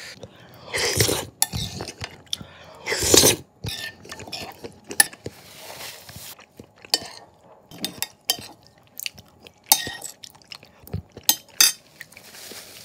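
Close-up eating sounds: a metal spoon scraping and clinking against a plate as the last jajangmyeon noodles and black bean sauce are gathered up. Mouthfuls of noodles are eaten and chewed in between, with a few louder noisy bursts about 1 and 3 seconds in.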